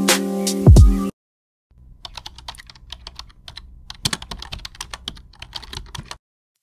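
Computer keyboard typing sound effect: a quick, irregular run of key clicks lasting about four seconds. Background music cuts off about a second in, just before the clicks begin.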